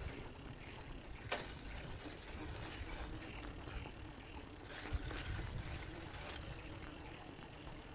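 Faint outdoor background: a low wind rumble on the microphone, with a few light clicks.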